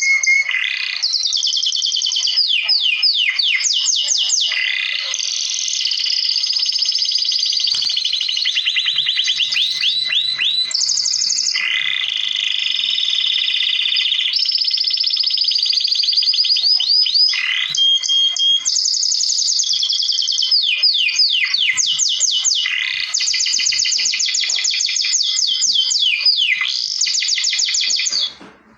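Canary singing continuously: long fast trills of rapidly repeated sweeping notes, shifting to a new phrase every second or two. The song stops briefly near the end.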